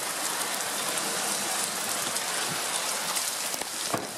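Rain falling steadily in a dense, even hiss, with a couple of faint clicks near the end.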